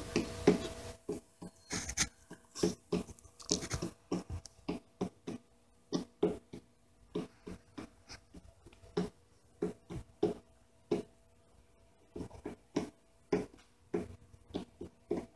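Irregular light taps and scratchy knocks, roughly one or two a second with a brief pause near the end, over a faint steady hum.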